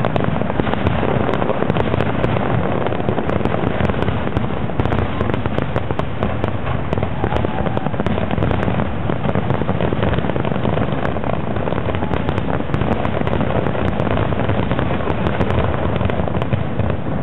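Aerial fireworks display: shells bursting in a dense, continuous barrage of bangs and crackling.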